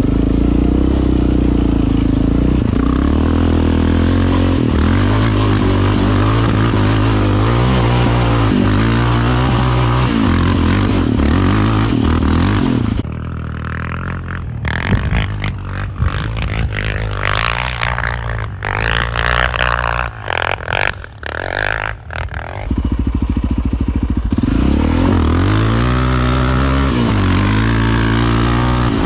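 Quad (ATV) engine running while riding, its revs rising and falling. For about ten seconds in the middle the engine drops back under a choppy, clattering noise, then it comes back up steady.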